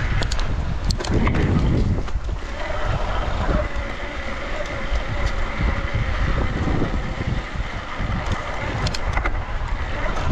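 Riding an electric mountain bike on a sandy dirt road: wind buffeting a chest-mounted action camera over the rumble of the tyres, with a steady high whine from the e-bike drive motor and a few sharp clicks and rattles from the bike near the start and near the end.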